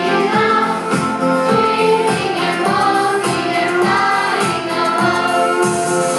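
Music: a song with several voices singing together over a steady beat.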